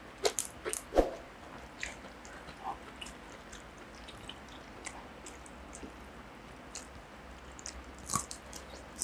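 Close-miked chewing and mouth sounds of people eating rice, boiled egg and raw greens by hand. Soft scattered smacks, clicks and crunches, with a few louder ones in the first second and again near the end.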